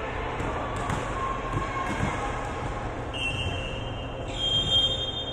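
Indoor basketball game: the ball bouncing and thudding on the court amid gym noise, with two long high-pitched squeals about three and four seconds in, the second louder.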